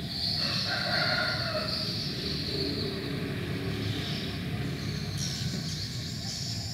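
Ambient background noise: a steady low rumble, with a distant pitched call lasting about a second and a half near the start.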